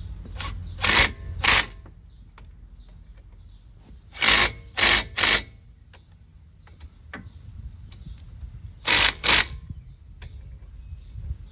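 Power tool run in short bursts, seven in all in groups of two, three and two, as fasteners are tightened at the end of a front brake job.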